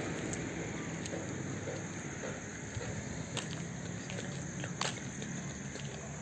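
Faint footsteps walking on a paved path, light ticks about every half second over a low steady background hum.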